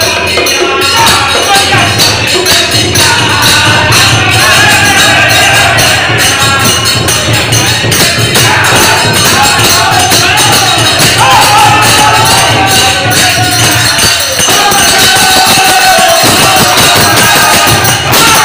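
Group of men singing together loudly, one voice through a handheld microphone, over a steady rhythm of jingling percussion.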